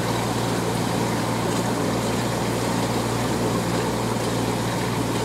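Steady hum and rushing water of a fish tank's circulation pump running without a break.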